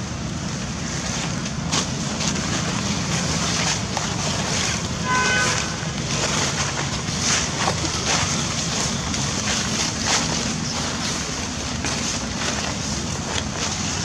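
Steady wind noise buffeting the microphone, a low rumble under a hiss, with scattered short crackles. About five seconds in comes one brief high-pitched call.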